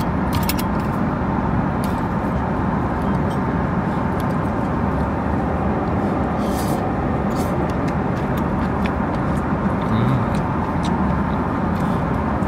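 Steady cabin noise of an Airbus A330-300 airliner in flight: an even rush of air and engine noise that does not change, with a few faint clicks.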